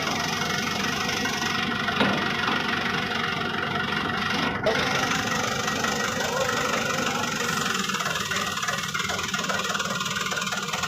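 Vehicle engine running steadily, with a sharp knock about two seconds in and a smaller one a couple of seconds later.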